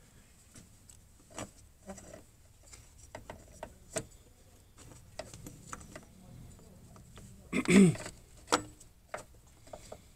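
Scattered light clicks and knocks of a new water pump being handled and worked into its opening in a car engine bay by hand. One louder, longer sound comes a little before the end.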